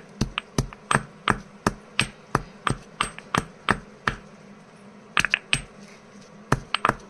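Stone pestle pounding whole spices, black cardamom and cinnamon, in a stone mortar. Sharp knocks come about three a second, with a short pause about four seconds in, then a few quicker strikes.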